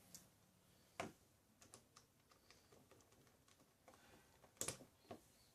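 Faint clicks of plastic Megaminx puzzle pieces being handled: one sharp click about a second in and a few more near the end, with light ticks between.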